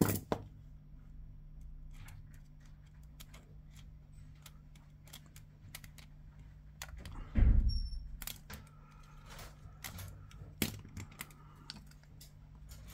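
Scattered small clicks and taps of a tool working the 3.5 mm jack retaining nut off a Sennheiser body pack transmitter, with one dull low thump about seven and a half seconds in, over a steady low hum.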